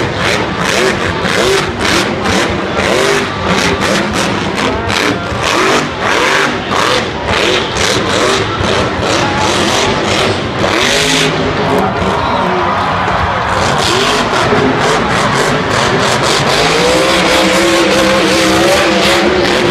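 Grave Digger monster truck's supercharged V8 revving hard and loud, with an arena crowd beneath. In the second half the engine pitch climbs and falls in long sweeps.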